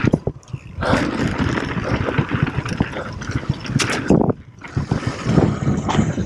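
Mountain bike ridden fast down a dirt trail: knobby tyres rolling and scraping on packed dirt while the bike clatters over bumps. Two brief lulls come about half a second and about four seconds in.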